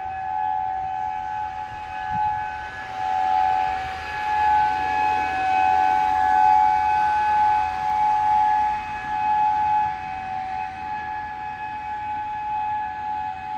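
Outdoor civil defense warning siren sounding a steady, unwavering tone, swelling and fading in loudness. It is sounding a tornado warning.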